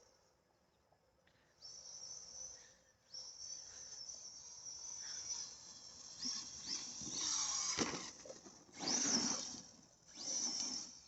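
Arrma Big Rock RC monster truck's brushless electric motor and drivetrain whining in throttle bursts, stopping and starting several times, with a louder, fuller burst about nine seconds in.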